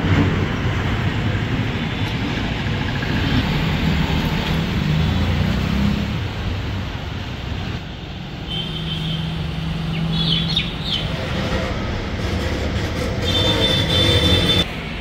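Road traffic noise, a steady rumble of passing vehicles. In the second half come a few short high-pitched squeals.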